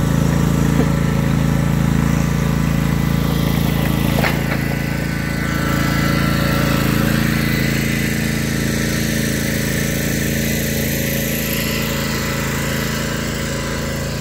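Engine of a commercial stand-on lawn mower running steadily and loudly.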